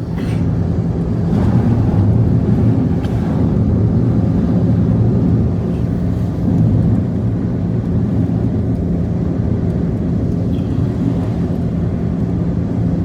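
An engine running steadily at an even speed, starting and stopping abruptly.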